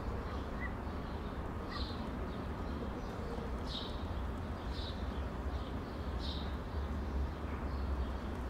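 Outdoor ambience: short, high bird chirps repeating irregularly about once a second over a steady low rumble.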